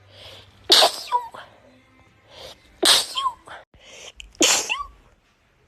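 Three sneezes in a row, about a second and a half to two seconds apart, each a quick breath in, a sharp explosive burst, and a short squeaky tail that rises in pitch.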